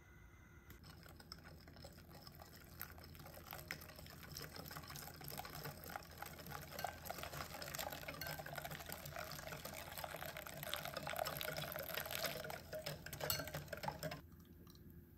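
Running water, like a tap filling a container, growing louder and then shut off abruptly about fourteen seconds in.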